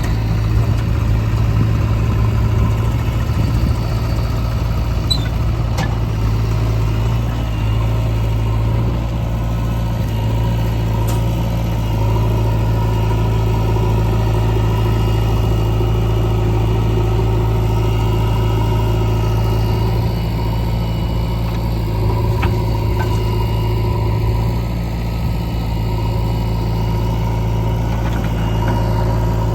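Heavy diesel machinery engine running steadily, its low note stepping up and down a few times as the load changes.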